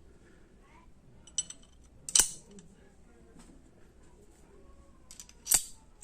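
Small metal ratchet parts clicking and knocking against each other as a 72-tooth ratchet is put back together by hand. There are a few separate sharp clicks, the loudest about two seconds in and again near the end.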